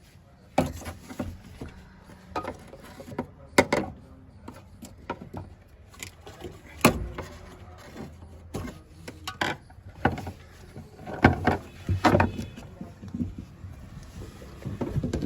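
A series of irregular knocks and clatters, like parts and tools being handled, over a faint low hum.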